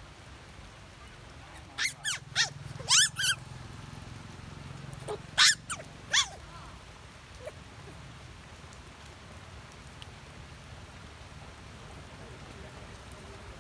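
Two quick runs of short, high-pitched animal calls, about five some two seconds in and about four more some five seconds in. Each call rises and falls in pitch.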